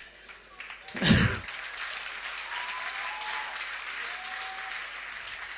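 Live audience applauding for several seconds. The applause starts about a second in with a short loud burst.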